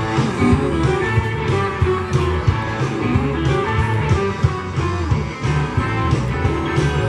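Live band playing guitar-driven blues-rock, with bass and drums keeping a steady beat.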